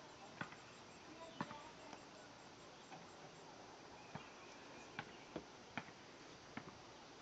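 Faint outdoor night ambience: insects such as crickets chirping in a high, even pulse, with a dozen or so sharp clicks or pops scattered irregularly, about one a second.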